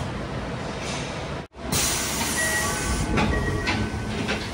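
Tokyo Metro Hanzomon Line car standing in the station, its interior hum steady. After about a second and a half comes a short series of chime tones at different pitches, followed by a few knocks near the end as the sliding doors close.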